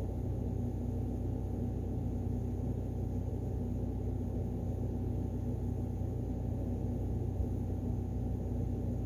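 Steady machine hum with several held low tones, unchanging throughout, like a fan or air-conditioning unit running in the room.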